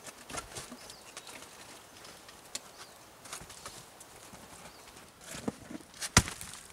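Scattered light clicks and knocks of split firewood being handled. About six seconds in comes one sharp, much louder knock of a log against stacked wood.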